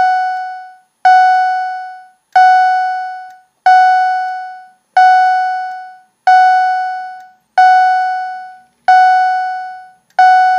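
Wheelock CH70 chime/strobe fire alarm sounding its chime, a single bell-like strike repeating about every 1.3 seconds, each note ringing and fading away within about a second. The unit is set to low volume and runs on 18 volts.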